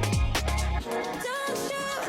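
Background music: an electronic pop track with heavy kick drum and bass in the first second, then a sung or synth melody.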